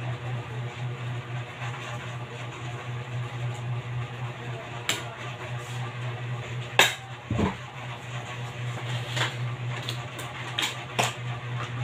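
A steady low hum under a few sharp clicks and knocks of kitchen utensils against pans, the loudest about seven seconds in, with more clicks near the end.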